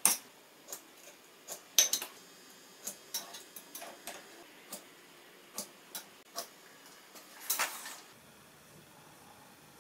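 Scattered light metallic clicks and taps of a sliding bevel and marking knife set against a metal plane side plate clamped in a vise, as angled lines are scribed on it. A brief scraping stroke comes about three-quarters of the way through.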